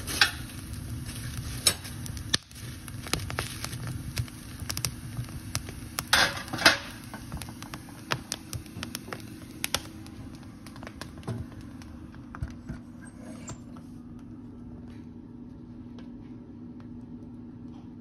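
Logs burning in a wood stove, crackling with sharp snaps that are thickest in the first half and thin out later. A steady low hum runs underneath.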